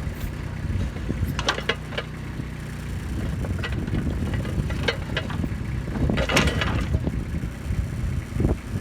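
Kubota B2630 compact tractor's diesel engine running steadily under load, with the backhoe bucket clanking and scraping in rock and dirt: several sharp clanks and a longer grinding scrape about six seconds in.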